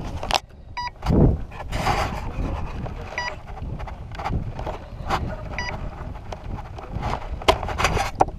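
A short electronic beep sounding three times, about two and a half seconds apart, over wind rumbling on the microphone, with scattered rustles and knocks and a heavy low thump about a second in.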